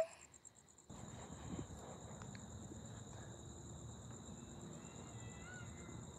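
Faint, steady trilling of night insects, two unbroken high tones over a low hiss, with a soft knock about a second and a half in.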